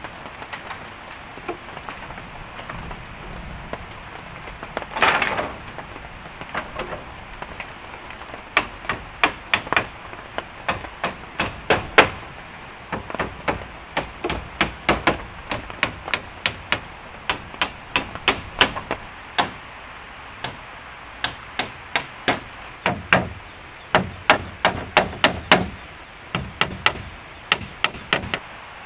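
A hand tool striking wood over and over while a hut is built, in quick runs of blows, often two or three a second, with short pauses between runs. A short scraping rustle comes about five seconds in, and steady rain hisses throughout.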